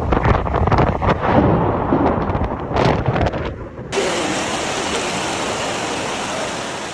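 Hailstones clattering on hard surfaces in gusty wind that buffets the microphone. About four seconds in it cuts abruptly to the steady hiss of a heavy downpour.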